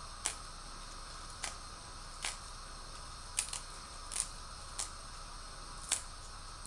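Lettuce leaves being torn by hand into small pieces: about eight short snaps at irregular intervals, over a steady background hiss.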